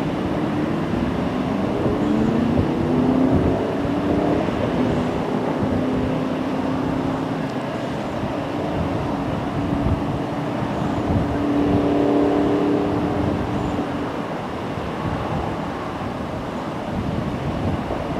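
Water rushing steadily from a fire hydrant sheared off by a car, still running at full flow before the valve is shut. A vehicle engine hums over it, rising in pitch over the first few seconds and then holding steady until about three-quarters of the way through.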